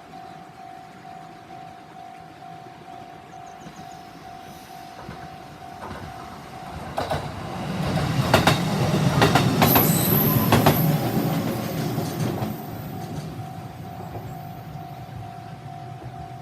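JR 313 series two-car electric train passing over a level crossing, rumbling and clattering over the rail joints, loudest about halfway through. A Japanese level-crossing alarm rings steadily in a quick repeating pulse before and after the train, drowned out while it passes.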